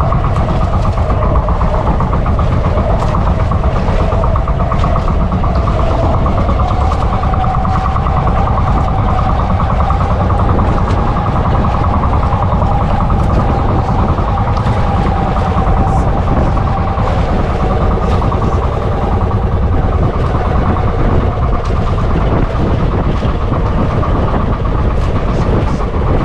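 Boat engine running steadily at an even speed, with no change in pace.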